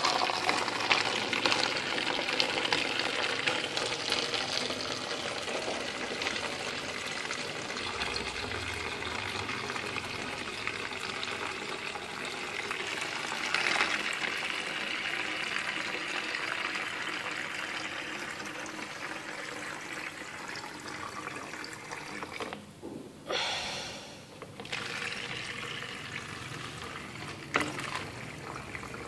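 Steady rush of running water, dropping away briefly about three-quarters of the way through.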